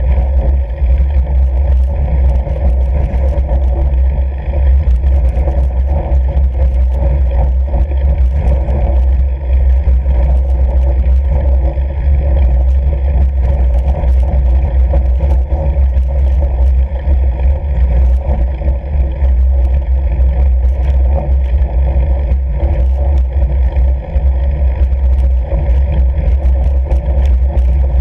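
Steady low rumble of wind on the microphone and a fat bike's tyres rolling over snow-covered lake ice, with faint crunching ticks throughout.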